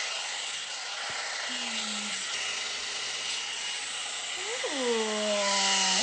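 Amika round blow dryer brush running steadily: a constant rush of hot air with a thin, steady motor whine. Near the end a person's drawn-out vocal sound, gliding up then holding, rises over it.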